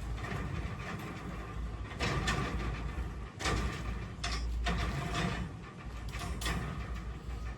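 Construction work noise: irregular scraping and clattering strokes over a steady low rumble.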